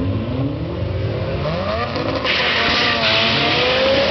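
Two turbocharged four-cylinder drag cars, an Integra Type R and a Dodge Neon SRT-4, launching off the start line and accelerating hard, their engine notes climbing in pitch. About two seconds in, a loud rushing noise joins and the sound gets louder.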